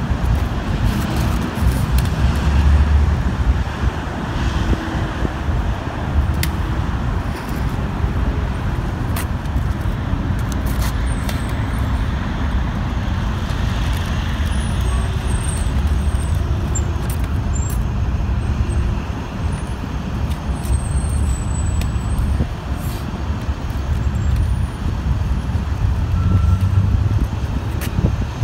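Steady low rumble of road traffic noise, swelling louder now and then.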